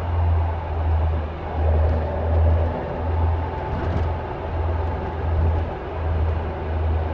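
Caterham Super Seven 1600's four-cylinder engine running steadily: a deep low drone that swells and fades about once a second, with a steady hiss above it.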